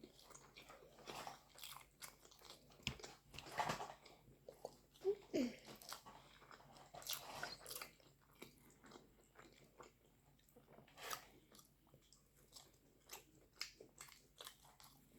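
A person chewing and biting food close to the microphone: quiet, irregular wet mouth clicks and smacks.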